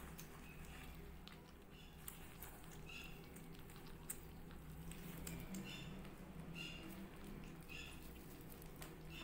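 Kittens eating dry cat food from a plate: faint crunching of kibble with scattered small clicks, and a few short, high squeaks.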